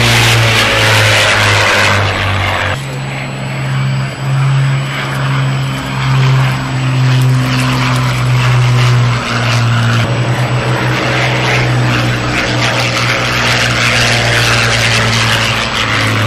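World War II fighter piston engines, a Supermarine Spitfire's Rolls-Royce Merlin V12 and a Curtiss P-40C's Allison V12, droning loudly on low fly-by passes. The engine note shifts up and down as the aircraft pass, with an abrupt change about three seconds in and a brief fluttering pulse around the middle.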